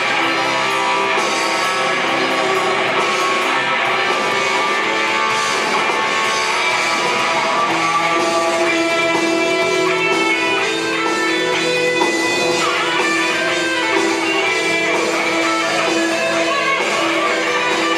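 Live progressive rock band playing, led by electric guitar with long held notes over bass and drums.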